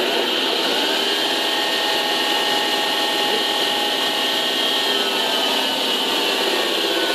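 Enco 6x48 belt and 12-inch disc sander running steadily, its 1 hp, 110 V motor humming with the whir of belt and disc.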